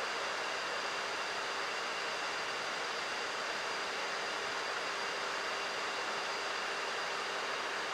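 Steady rush of air and systems noise on the flight deck of an Airbus A340-300 in descent, with a few faint steady whines under it.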